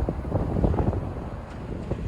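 Storm-force wind buffeting the microphone, a low gusty rumble that surges and eases irregularly.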